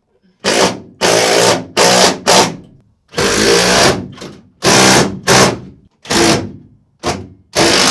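Power drill/driver running in about ten short bursts, stopping and starting, driving the small bolts that fasten solar panel mounts through a school bus roof.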